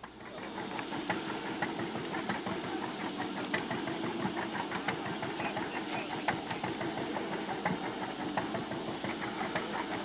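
An engine running steadily, with a rapid mechanical clatter.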